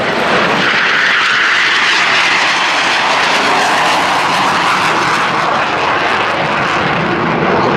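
Jet engine noise from a pair of Northrop F-5E Tiger II fighters, each with two General Electric J85 turbojets, passing low. The loud rushing whine slides down in pitch as they go by.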